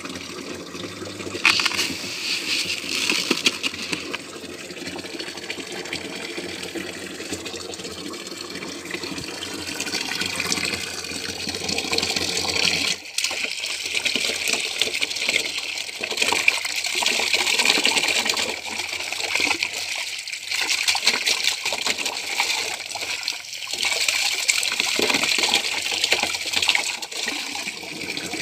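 Water pouring from a hose into a plastic drum, a steady gush and splash onto the water inside, spattering off a hand and a pesticide sachet held in the stream. A low hum runs under it until about halfway, then stops.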